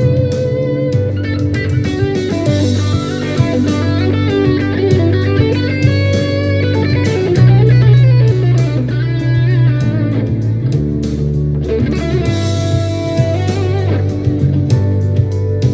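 Ibanez electric guitar played as an improvised lead solo, with quick runs of notes, over a backing track whose low bass notes change every couple of seconds.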